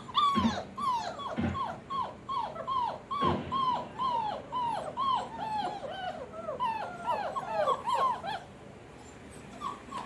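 A four-week-old German Shepherd puppy whining, a quick run of short cries that each fall in pitch, about two to three a second, stopping about eight and a half seconds in. A few low thumps sound under the first few cries.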